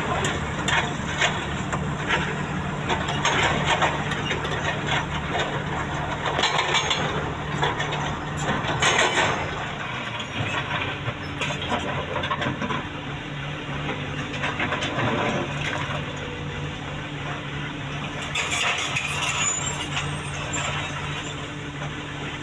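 Excavator's diesel engine running steadily under load, with irregular clanks and knocks of machinery and material. The knocks come thick during the first half and again briefly near the end.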